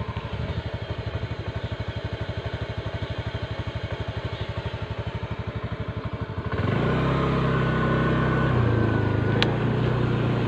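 Small motorcycle engine running at low speed with a fast, even putter. About six and a half seconds in, it picks up and runs louder and steadier at higher revs.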